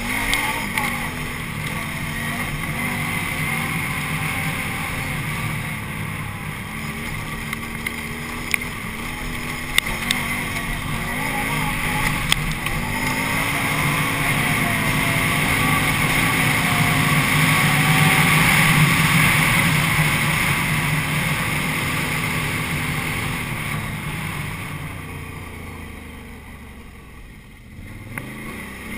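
Can-Am Renegade 800 ATV's V-twin engine running under throttle. Its revs climb to a peak over the middle and ease off near the end before picking up again. A few sharp clicks sound early on and about a third of the way in.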